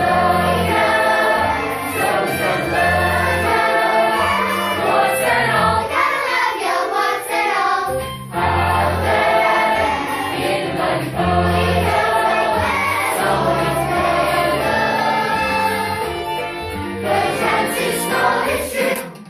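Stage musical cast singing together in chorus over an instrumental accompaniment with a pulsing bass line.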